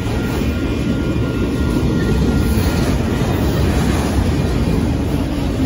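Freight train of enclosed autorack cars rolling past: a steady, loud rumble of steel wheels on the rails.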